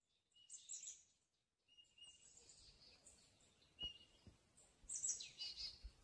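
Faint birds chirping and trilling in short, high-pitched phrases, with a soft knock about four seconds in.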